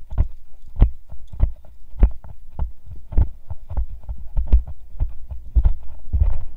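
Walking footsteps: a steady series of dull thuds, a little under two a second, each with a light click, picked up by a head-mounted camera on an arborist carrying climbing gear.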